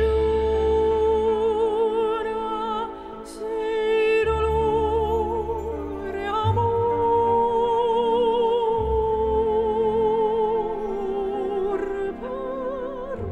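Slow background music: a melody of long held notes with a strong vibrato over deep sustained bass notes, the notes changing every couple of seconds.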